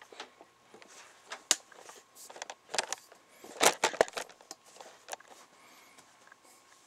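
Handling noise from a hand-held camera being picked up and moved: scattered knocks, clicks and cloth rubbing against the microphone, loudest in a cluster of knocks about three and a half to four seconds in.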